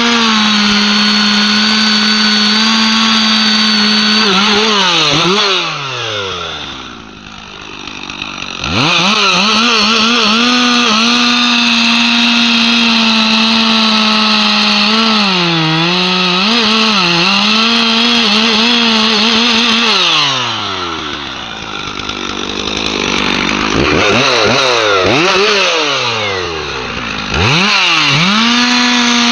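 Two-stroke chainsaw cutting through a large tree trunk at full throttle, its pitch sagging as it bogs in the cut. Twice the throttle is eased off and the engine winds down, about six seconds in and again around twenty seconds in, before revving back up to full speed.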